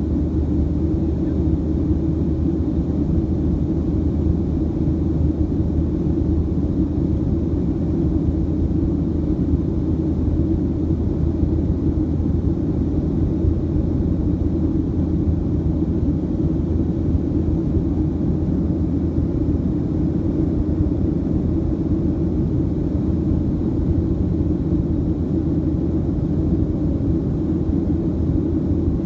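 Steady low rumble of a Boeing 737-700's CFM56-7B turbofan engines and the airflow, heard inside the cabin from a window seat over the wing during the climb after takeoff.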